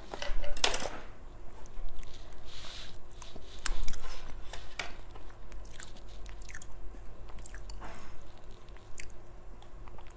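A person biting and chewing food close to the microphone: irregular sharp clicks and crunches, the loudest just after the start and about four seconds in.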